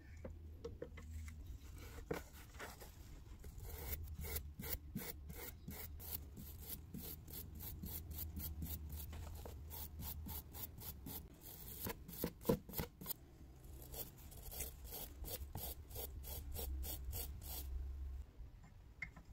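A stiff brush scrubbing loosened rust off the threaded steel body of an old tap reseating tool, in quick scratchy back-and-forth strokes of about three a second that start a few seconds in and stop near the end. A steady low hum runs underneath.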